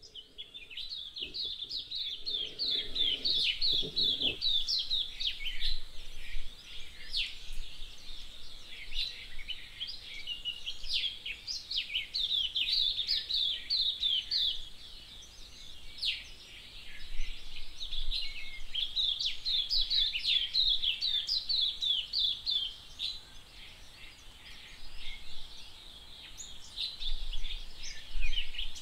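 Dawn chorus of Cape white-eyes: many rapid, high chirps and twitters overlapping almost without a break, easing off briefly twice.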